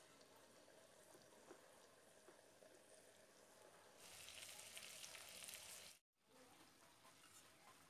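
Chicken legs and tomato pieces sizzling in oil in a frying pan. The sizzle is faint at first, grows louder about halfway through, then cuts out for a moment before returning faintly.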